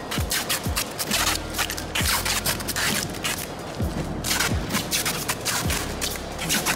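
Background music with a deep kick-drum beat that drops in pitch on each hit, over bursts of hiss.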